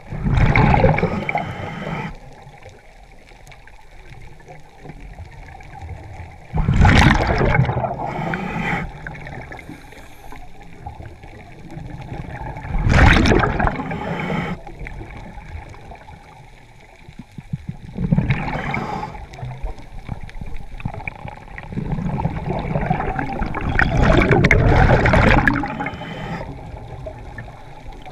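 Scuba regulator exhaust bubbles heard underwater: a diver's exhaled breath gurgling out in five bursts a few seconds apart, the last one the longest, in the rhythm of slow breathing.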